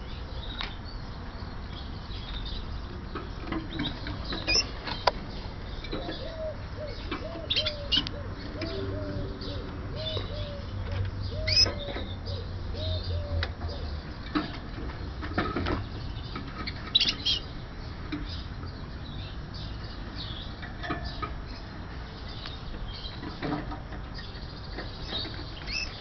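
Caged Gloster canaries fluttering and hopping, with short high chirps and call notes scattered throughout and a few sharp clicks. A run of soft repeated low notes comes about a quarter of the way in.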